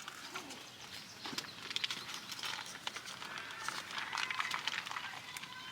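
Light crinkling and crackling of the plastic mixing pouch of two-part polyurethane fence-post foam being handled, growing busier toward the end.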